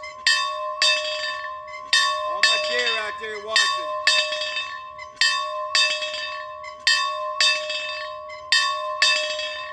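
A bell rung over and over in a steady rhythm, about two strokes a second, each strike ringing on so that its tone hangs continuously under the next.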